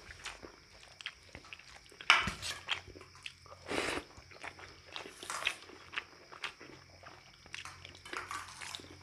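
Close-miked eating sounds of a rice-and-dal meal: chewing and wet mouth clicks and smacks, with two louder noises about two and four seconds in.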